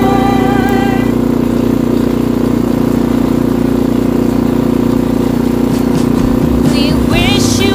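An engine running steadily with a constant low hum. Music plays over it in the first second and comes back near the end.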